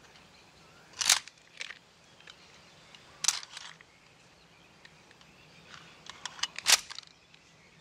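A handgun being handled: a series of sharp clicks, about five loud ones with smaller ticks between them, spaced irregularly.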